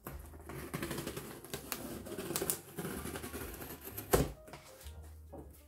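Packing tape on a cardboard box being slit along its seam, a fast crackling rasp as the tape splits and peels from the cardboard, with one sharp snap about four seconds in.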